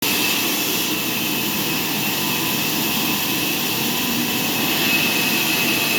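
Sawmill machinery running steadily: a constant mechanical hiss with a steady high whine over it.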